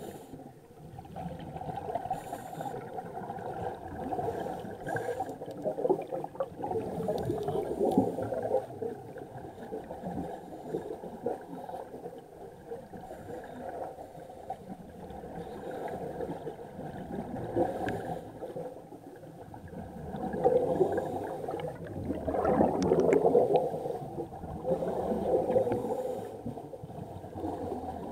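Scuba divers' exhaled bubbles gurgling and rumbling underwater, heard muffled through the water. The sound comes in surges a few seconds long with quieter stretches between, one for each breath out through the regulators.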